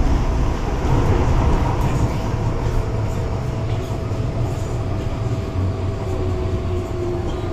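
MTR Kwun Tong line M-train running at speed through a tunnel, heard from inside the car by the doors: a steady low rumble of wheels on rail with a constant mid-pitched tone over it.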